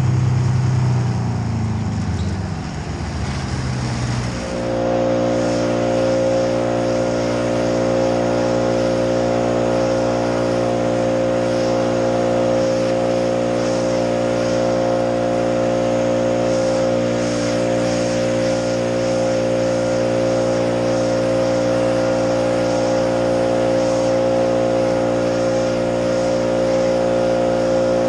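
An engine ticking over at a low idle, then about four seconds in quickly opening up to high revs and holding there, running steadily without change.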